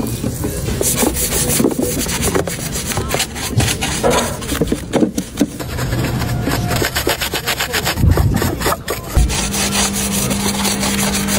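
Repeated scraping and rubbing of tool work on a car, with a steady hum starting about nine seconds in.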